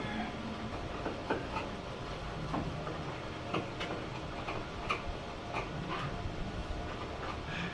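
Light, irregular taps and clicks of hand-tool work on a door, about one to two a second, over a steady low background hum.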